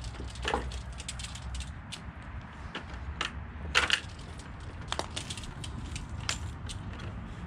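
Irregular clicks, taps and knocks of a plastic bird feeder and its mounting parts being handled, with the sharpest knocks about half a second in and just before four seconds.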